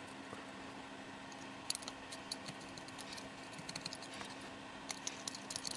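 Small metal blade scraping and picking hardened glue off the end of a glass lamp bulb: a run of faint, small scratchy clicks, growing denser near the end.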